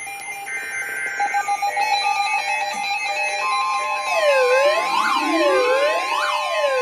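Electronic severe-weather alert tones from a broadcast: first a quick, melody-like run of short beeps, then from about four seconds in a steady tone joined by a siren-like wail that sweeps up and down about once a second.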